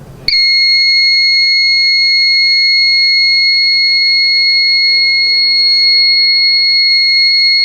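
Buzzer of a homemade smoke-alarm circuit sounding one continuous, steady high-pitched tone, starting about a quarter second in. It has been set off by the circuit's smoke sensor detecting smoke.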